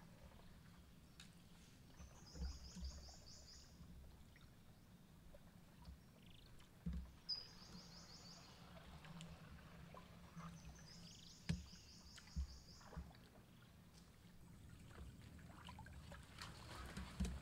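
Wooden paddle working a small wooden boat through still water: soft splashes and trickles with occasional knocks against the hull. A high rapid trill sounds three times, each about a second and a half long.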